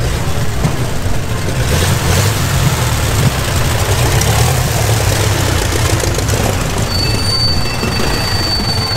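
Big vintage racing car engines running at low revs with a steady, deep rumble as the cars drive slowly past one after another. A thin high-pitched tone joins in about two seconds before the end.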